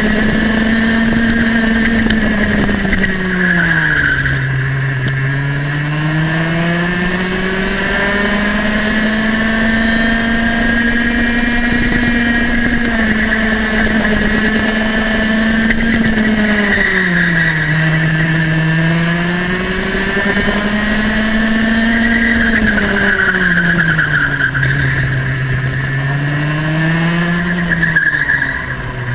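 Racing kart's two-stroke engine heard from on board, held high near 13,000 rpm on the straights. Its pitch drops three times as the kart slows for corners, each time rising again as the throttle opens.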